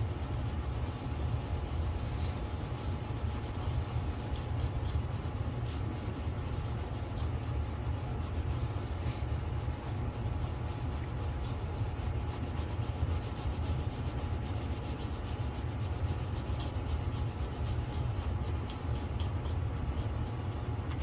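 Plastic camera lens of a first-generation Ring Video Doorbell Pro being rubbed steadily back and forth on fine wet/dry polishing paper, a continuous scratchy sanding sound, sanding out the lens's fogging. A steady low hum runs underneath.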